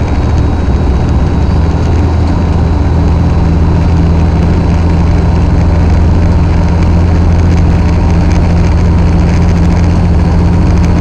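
Truck engine and road noise heard inside the cab while cruising: a loud, steady low drone.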